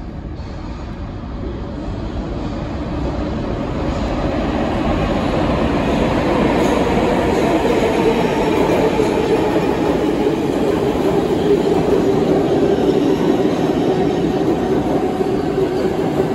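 New York City subway express train running through the station on the express track without stopping, its wheels and motors rumbling along the rails. The noise grows louder over the first few seconds, then holds steady, with a steady droning tone running under it.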